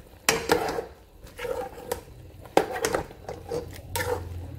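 Metal spoon stirring chopped okra and meat in a soup pot, with irregular clinks and scrapes of the spoon against the pot and soft wet stirring between them.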